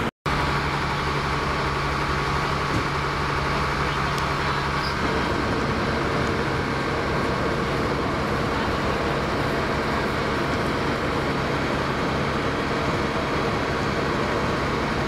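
A steady engine drone with a held hum running without a break; the low part of the hum changes about five seconds in.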